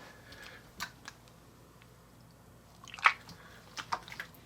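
Thick slime being squished, stretched and dropped by hand, giving scattered wet squelches and sticky pops, the loudest a little past the middle. A fan hums faintly underneath.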